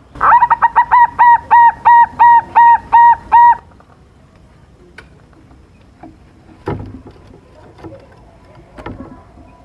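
Silver-form perkutut (zebra dove) cooing: a rapid run of about a dozen clear, evenly pitched notes lasting three and a half seconds, then stopping. A few faint knocks follow.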